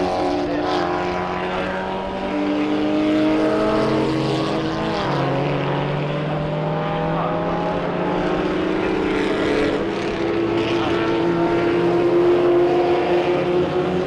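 Engines of several 1960s cigar-shaped historic formula cars running together as they lap a circuit, their overlapping engine notes rising and falling in pitch.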